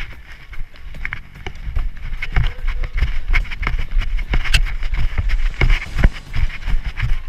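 Running footsteps on pavement picked up by a body-worn action camera: a quick run of footfall knocks over a low rumble from the jolting camera, getting louder about two seconds in.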